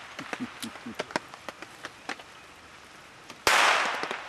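A single blank-pistol shot about three and a half seconds in, sharp, with an echoing tail that dies away over about a second: the gunfire test of the dog's steadiness under gunshot during the heeling exercise. Faint scattered ticks sound before it.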